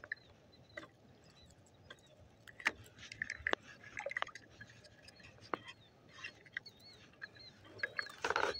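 Paddling an inflatable kayak: scattered knocks and clicks of the paddle against the boat, and a louder rush of water splashing near the end. Faint, short high chirps from a small animal repeat throughout.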